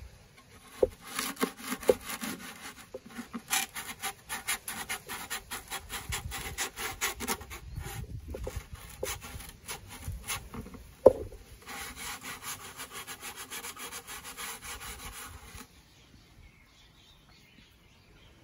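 Sandpaper rubbing in quick back-and-forth strokes on the wooden side of a ukulele body, along the edge where the back meets the sides, with one sharp knock about two-thirds of the way through. The rubbing stops a few seconds before the end.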